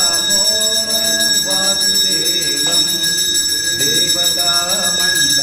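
Temple bell rung without pause during aarti, a steady high ring that never breaks, with men's voices chanting over it.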